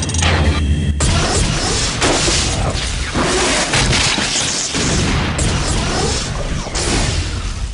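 Animated battle sound effects: a dense run of booms and crashes, with fresh hits about a second in and again near the end.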